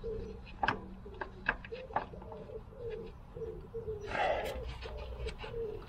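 Pigeon cooing: a steady run of low, rolling coo notes, about three a second, with a few sharp clicks and a brief rustle about four seconds in.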